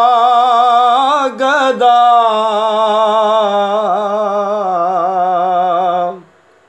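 A man singing a Punjabi naat solo, without instruments, drawing out a long wavering note that stops about six seconds in.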